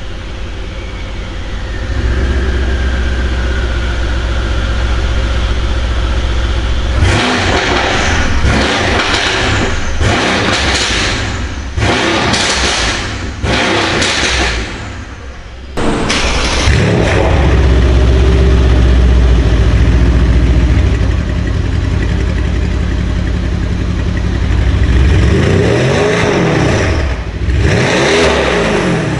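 Mercedes-AMG C63 S W205's 4.0-litre twin-turbo V8 breathing through catless IPE downpipes and an Akrapovic titanium cat-back exhaust. It runs, then is blipped in a quick series of revs, is held at a higher steady speed, and is revved up and down again near the end. It is very loud, with the sound meter reading about 105 dB.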